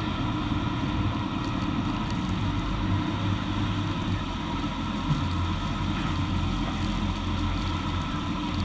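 Steady low rumble of a tour boat's engine under way, mixed with wind buffeting the microphone and the rushing of the waterfall and spray.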